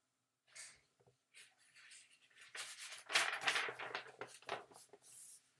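Pages of a large picture book being handled and turned: a papery rustling and rubbing, strongest about three seconds in, with a few faint taps before it.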